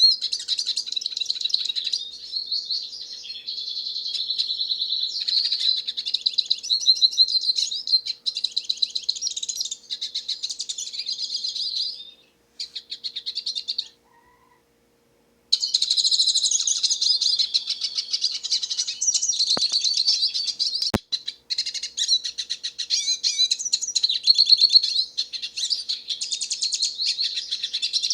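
Hooded siskin singing a long, rapid, twittering song of high chirps and trills. The song breaks off for about three seconds around the middle, then resumes; two faint clicks come shortly after it resumes.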